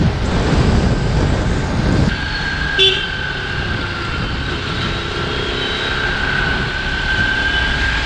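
Motorcycle ride heard through a helmet camera's internal mic. For the first two seconds there is heavy wind rush over the engine. Then the sound drops to quieter street riding with a steady high whine, and a vehicle horn gives a short toot about three seconds in.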